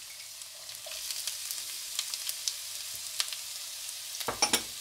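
Chopped ginger, garlic and green chillies sizzling in hot oil in a nonstick pan, a steady hiss with scattered crackles and a short run of sharp clicks near the end.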